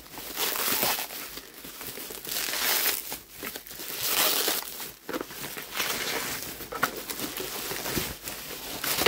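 Paper bags and packaging crinkling and rustling in repeated bursts as they are pushed about and handled.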